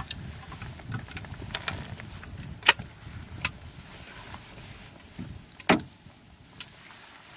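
A scatter of sharp clicks and knocks, about eight in all, two of them louder, over a faint low rumble.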